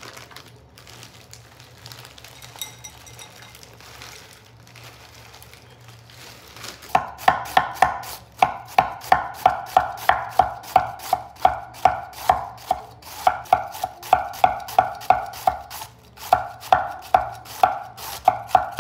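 Kitchen knife finely shredding a head of cabbage on a wooden cutting board: quick, even chopping strokes, about three a second, starting about seven seconds in, with a short break near the end. Quieter handling sounds come before the chopping.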